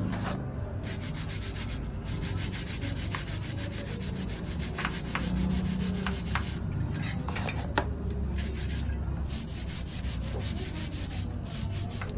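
Quick, repeated rubbing strokes of bicycle cleaning, scrubbing the bike, with a few light knocks along the way.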